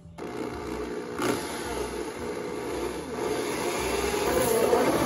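Power drill running with its bit cutting through fibreglass bodywork, drilling a fastener hole. One knock about a second in, and the drilling gets louder in the second half.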